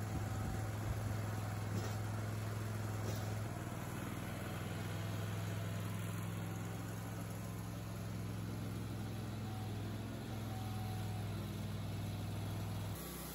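A Wood-Mizer LT30 Hydraulic band sawmill's engine runs steadily with a low hum while the sawhead travels along the track. Near the end the hum drops away suddenly to a quieter level.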